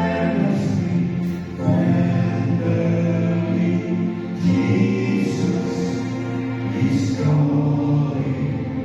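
A church choir singing a Christian song in close multi-part harmony, holding long chords that change every few seconds.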